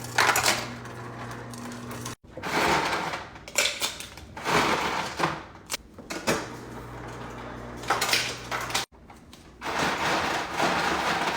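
Indoor household clatter, like dishes and drawers being handled, with a low steady hum in two stretches. The sound cuts out abruptly twice.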